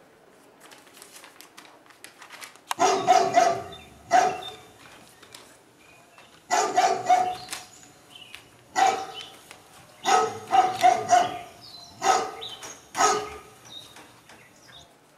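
Dog barking: about a dozen barks in short groups of one to three, starting about three seconds in.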